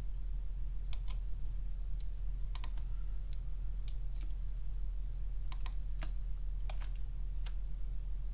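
Computer keyboard keys and mouse buttons clicking, about a dozen scattered taps, some in quick pairs, over a steady low electrical hum and a faint thin high whine.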